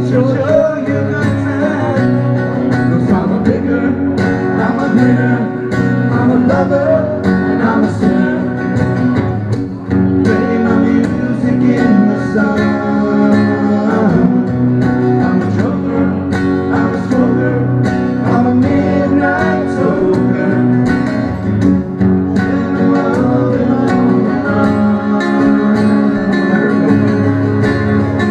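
Two acoustic guitars strummed together in a song, with a man singing along.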